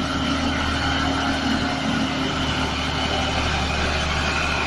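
Diesel engine of an overloaded Mitsubishi Fuso tow truck running steadily under heavy load, with a constant low hum.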